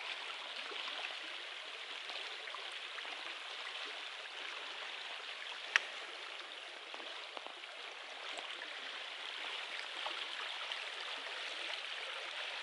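Shallow creek running over a rocky bed, a steady rush of flowing water, with one sharp click about six seconds in.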